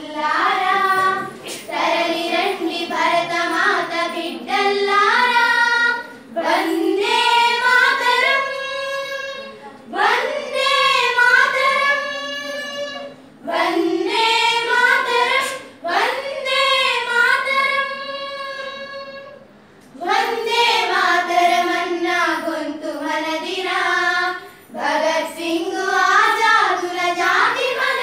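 A group of children singing together without instruments, in sung phrases of a few seconds broken by short pauses for breath.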